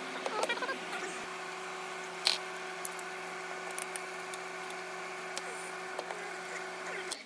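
Scattered light clicks and ticks of hand work on the engine's plastic line clips, the sharpest about two seconds in, over a steady low hum that cuts off abruptly near the end.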